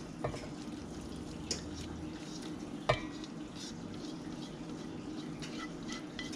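Silicone spatula scraping crumbled cooked fish out of a pan into a stainless steel mixing bowl, with a few short knocks of utensil or pan against the bowl. The sharpest knock comes about three seconds in.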